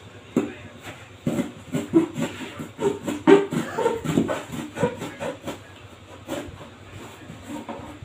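Knife blade sawing through a corrugated cardboard box: a quick run of rough, irregular rasping strokes that thins out into a few scattered ones over the last couple of seconds.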